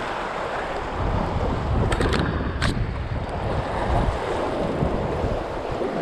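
Ocean waves washing against jetty rocks, with wind buffeting the microphone; a few short sharp clicks about two seconds in.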